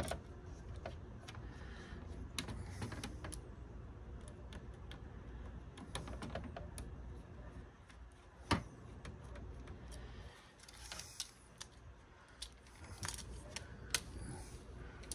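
Scattered light clicks and taps of a hand screwdriver and small plastic parts as screws are worked out of a DVD player's plastic chassis to free a small motor, with one sharper click about eight seconds in and a run of clicks near the end.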